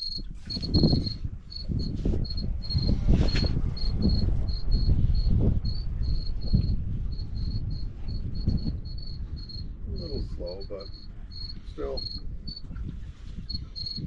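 A cricket chirping, a steady string of short high chirps several times a second, over a loud, uneven low rumble of wind and water against the boat.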